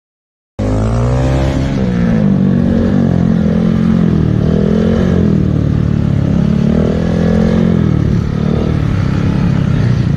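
Silence for about half a second, then a small motorcycle engine revving, its pitch rising and falling again and again as the throttle is worked.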